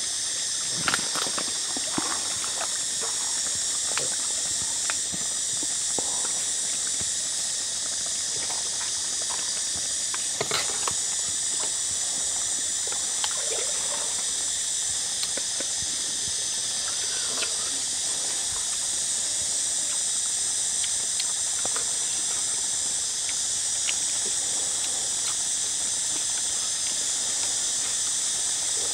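Steady high-pitched outdoor hiss, with scattered light clicks and taps from a metal ladle against a wok and chopsticks against a coconut-shell bowl.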